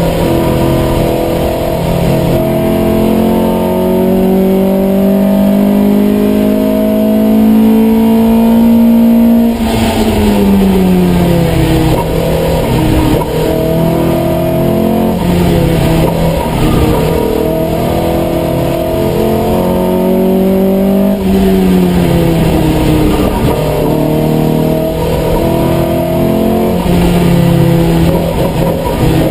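Opel Kadett C race car's engine heard from inside the cabin, pulling hard under full load: the revs climb steadily for about nine seconds, drop sharply, then rise and fall again and again through the rest of the run.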